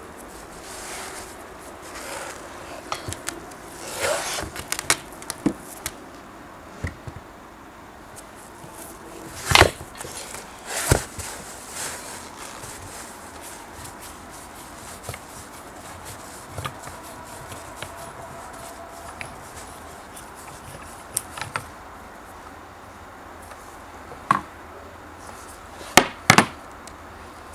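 Scattered knocks and clicks of an old parquet polisher being handled during restoration work, with a few sharper knocks about ten seconds in and two close together near the end.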